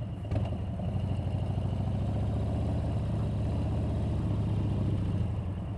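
Motorcycle engine running steadily at low revs, a fast, even pulse.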